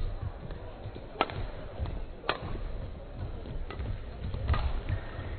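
Badminton rackets striking a shuttlecock in a doubles rally: sharp, short hits about once a second, four in all, over a low rumble of hall noise.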